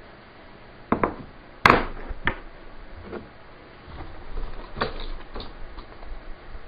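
Hard doussie-wood blocks and plastic 12-gauge shotgun shells being handled and knocked together: about half a dozen sharp wooden knocks and clicks, the loudest about a second and a half in, then lighter ones spread through the rest.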